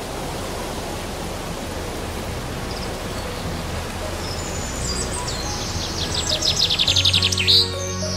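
Steady hiss-like ambience with rapid high chirping from about five seconds in, then background music tones coming in near the end.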